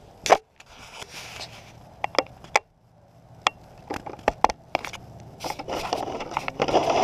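Handling noise from a camera and a plastic remote-control car body: a string of sharp clicks and knocks over scraping and rustling.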